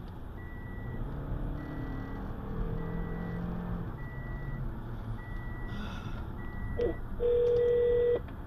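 Phone emergency-call countdown beeps: a short high beep about once a second, over steady road noise inside a moving car. Near the end a louder, lower steady tone sounds for about a second as the 911 call goes through.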